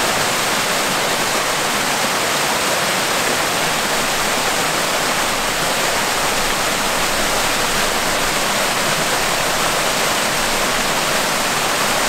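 Small waterfall pouring over rocks into a pool: a steady, even rush of falling water.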